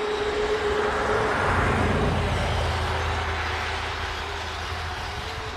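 Kyosho Blizzard 2.0 RC snowcat running on its two brushless electric motors, a steady high motor whine with the tracks churning through snow. The whine fades about a second and a half in, and a low rumble carries on under it.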